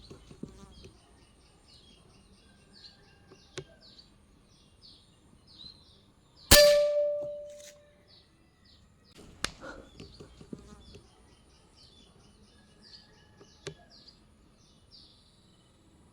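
A single shot from an FX Wildcat PCP air rifle about six and a half seconds in: a sharp crack with a short ringing tail that fades over about a second. A few fainter sharp clicks come before and after it, over birds chirping repeatedly.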